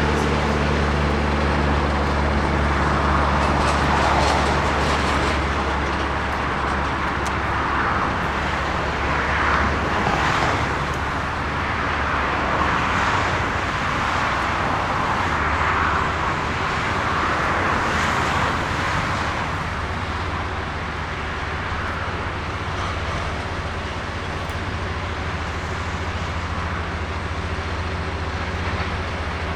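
Jet airliner engines running: a steady low rumble under a hiss that swells and ebbs, easing slightly in the last third.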